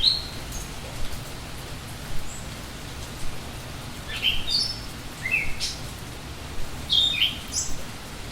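Steady rain falling, with a songbird singing short phrases of quick rising notes: one at the start and three more in the second half.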